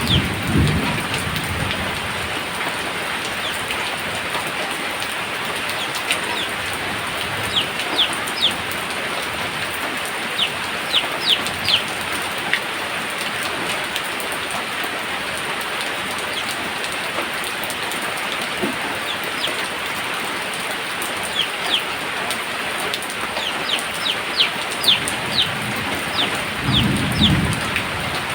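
Steady heavy rain falling, with low rolls of thunder rumbling at the start and again near the end. Clusters of short, high chirps sound over the rain several times.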